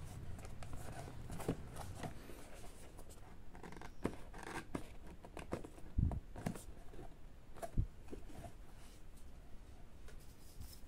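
Fingers handling and prying at the flaps of a small cardboard box: scattered scrapes and clicks of fingers and fingernails on cardboard, with two dull thumps about six and eight seconds in.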